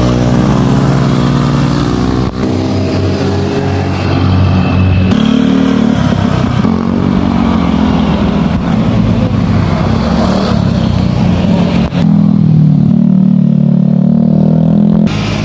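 Motorcycle engines revving as bikes ride past one after another, the sound cutting abruptly from one pass to the next several times.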